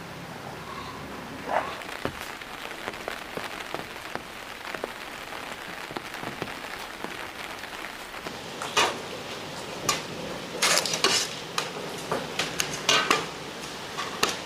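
Rain falling steadily, with irregular sharp taps and clicks that become louder and more frequent in the second half.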